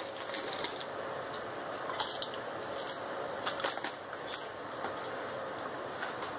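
Lay's potato chips being chewed: scattered sharp crunches, some in quick pairs, over a steady faint hiss.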